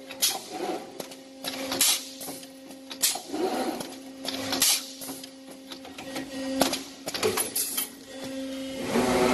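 Ladder-type brick force wire mesh welding machine running: a steady electrical hum, with six short sharp hissing bursts at uneven intervals of one to two seconds as it works through its feed-and-weld cycle.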